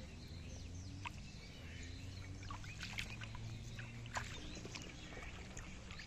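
Shallow muddy water splashing and sloshing as a person wades and gropes through it by hand, with a few sharper splashes about one, three and four seconds in, over a steady low rumble.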